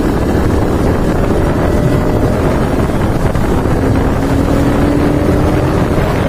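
Yamaha R15 V2's single-cylinder engine running steadily while the bike is ridden, heard under heavy wind noise on the microphone.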